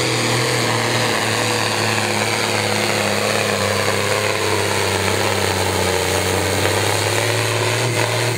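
Turbocharged diesel engine of a modified Ford pulling tractor running flat out under full load as it drags the weight-transfer sled. The engine note holds steady the whole way.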